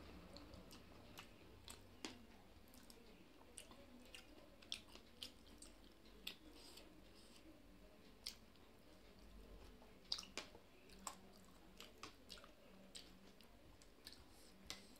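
Faint chewing of a mouthful of rice and chicken curry eaten by hand, with small irregular clicks and wet mouth sounds.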